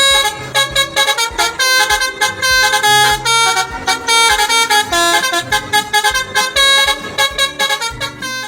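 Telolet horn, the multi-tone musical horn of Indonesian buses, playing a quick melody of short chords with a few longer held notes.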